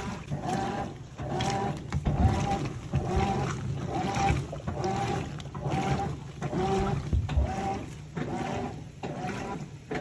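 Top-loading washing machine agitating a sudsy load. The agitator motor hums in an even stroke about every three-quarters of a second, with water sloshing.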